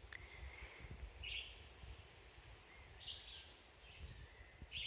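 Faint rainforest wildlife ambience: a steady thin high tone with a short rasping call that repeats about every one and a half to two seconds, over a low rumble.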